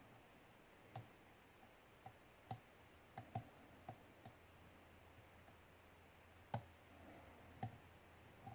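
Lock pick and pin tumblers inside a Syneco padlock clicking as the pins are worked one by one: about a dozen small, faint clicks at irregular intervals.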